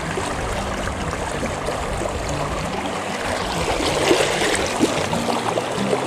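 River current rushing and splashing close to the microphone, with louder splashes about four and five seconds in.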